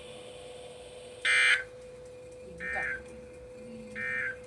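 Three short electronic beeps from a weather radio's buzzer, about a second and a half apart. The first is the loudest and harshest, and a faint steady hum runs underneath.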